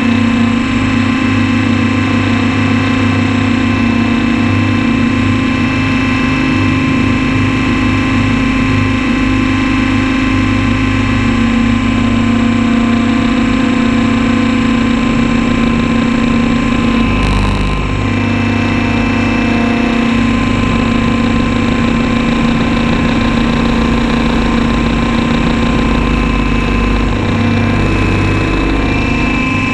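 Radio-controlled helicopter's motor and rotor running steadily in flight, heard close up from a camera mounted on the helicopter itself, with a short break in the steady drone about seventeen seconds in.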